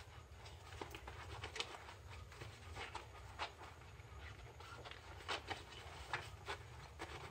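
Hands scrubbing with a sponge in a basin of thick soapy foam, giving irregular wet squelches, splashes and small clicks.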